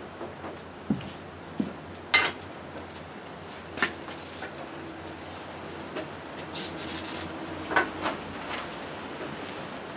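Scattered metal knocks, clinks and rubbing as a winch and its hawse fairlead are handled and shifted on a steel front bumper, the loudest knock about two seconds in and two more close together near the end.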